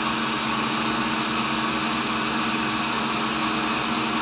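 Cincinnati tool and cutter grinder running steadily: an even motor hum with a hiss over it.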